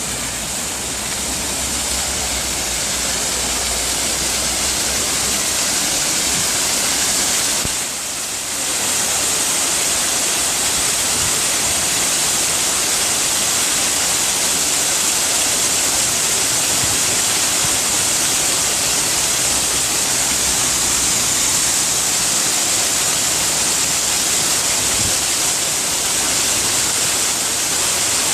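Waterfall in a ravine: water pouring down with a steady, loud rushing hiss. The sound dips briefly about eight seconds in.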